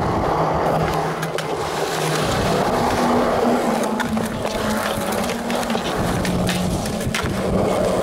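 Skateboard wheels rolling over a concrete skatepark with a steady rumble, broken by a few sharp clicks.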